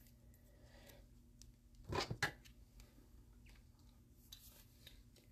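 Trading cards being handled: a quick cluster of three or four short scrapes and clicks about two seconds in, otherwise a quiet room.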